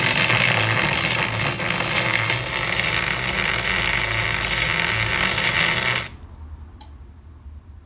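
Bare oval loudspeaker driver blaring harsh, heavily distorted, buzzing audio, which cuts off suddenly about six seconds in; a faint click follows. The distortion is the sign of the speaker failing.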